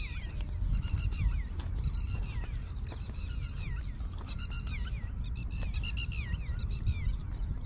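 Short, high-pitched animal calls in quick clusters, each call falling in pitch at its end, repeating about once a second over a steady low rumble of wind and movement on the microphone.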